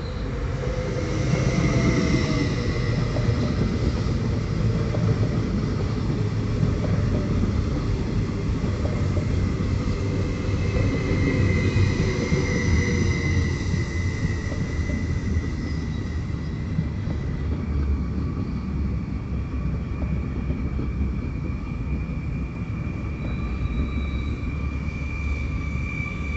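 Stadler FLIRT (ER160) electric multiple unit running on the line: a steady rumble of wheels on rail, growing louder over the first two seconds and then holding, with high whining tones that drift slowly in pitch.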